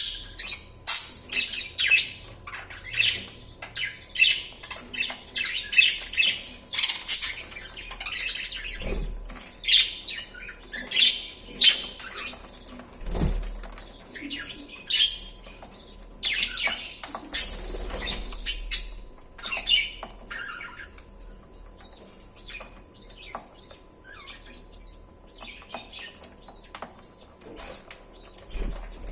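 Budgerigars chirping and chattering in quick, sharp, high calls, thick and busy at first and thinning out for the last several seconds.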